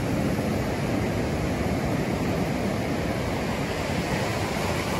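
Surf washing up the beach, with wind buffeting the microphone: a steady rushing noise.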